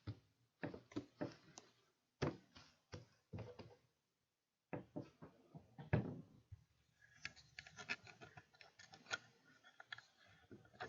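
Faint, irregular small clicks and taps of lock picks and a tension wrench working a Master Lock 141 padlock held in a vise. A few scattered knocks come first, and the clicking grows denser in the second half.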